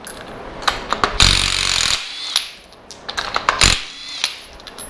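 Spark plugs being taken out of an A-series cylinder head: a power tool runs in a short burst of under a second, a little after one second in, among sharp metal clicks and knocks of tools and parts, the loudest knock just before four seconds in.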